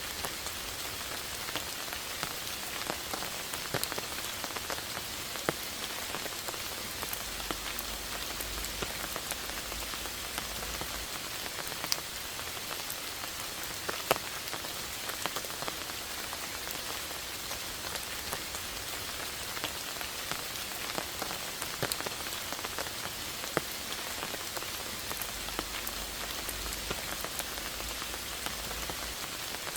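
Steady rain falling, an even hiss with single louder drops landing close by every few seconds.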